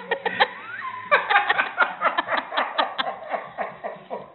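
A person laughing: a quick run of short, pitched laughs that keeps going.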